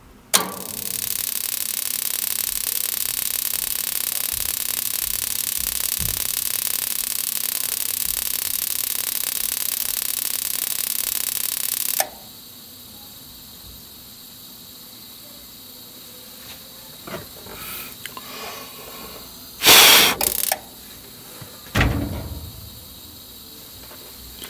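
A loud, steady hiss that cuts off suddenly about halfway through. Then a few short puffs of breath blown into a gas furnace burner to get the main flame to light, the two strongest coming near the end.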